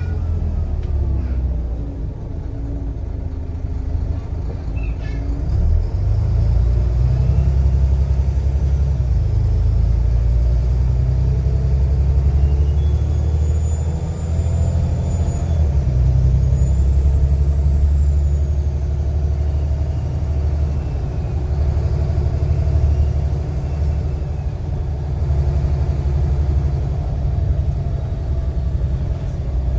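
Volvo B7TL bus's turbo-diesel engine running under load, swelling and easing in loudness. A faint high turbo whistle rises and falls twice around the middle.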